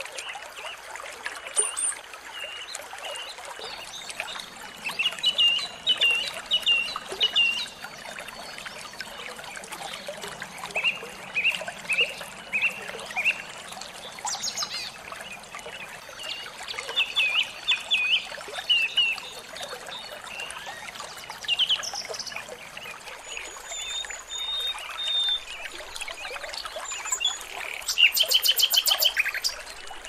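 Small songbirds singing in short, repeated chirping phrases over a steady trickle of running water. Near the end comes a loud, fast rattle.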